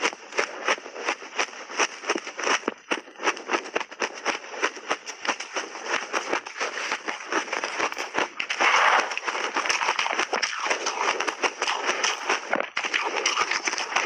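Close-miked crunching of buckwheat-coated shaved ice being chewed, a rapid run of sharp crunches several times a second. About two-thirds of the way through a louder scraping rush comes as a spoon digs into the tray of ice.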